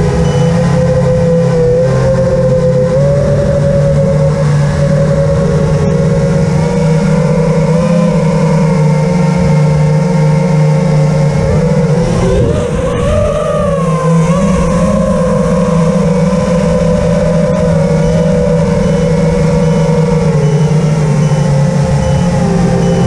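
Motor and propeller of an RC model plane, recorded from its onboard camera, running steadily at flight throttle with a held drone-like pitch over wind noise. About halfway through, the pitch briefly dips and climbs again as the throttle changes.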